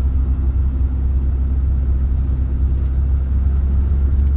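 A car's engine and road noise as a steady low rumble, unchanging in pitch and loudness.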